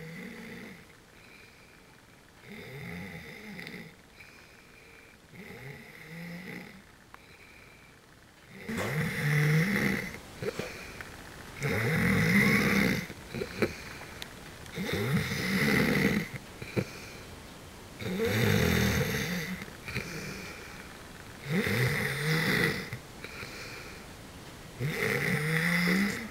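A person snoring in their sleep, one snore about every three seconds. The snores are soft at first and grow much louder about a third of the way in.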